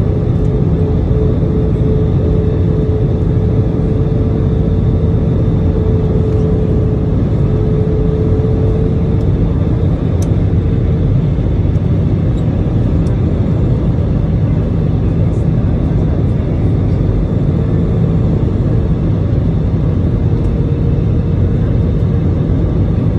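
Jet airliner cabin noise by the wing during descent to land: a steady loud rush of turbofan engine and airflow with a steady humming tone running through it.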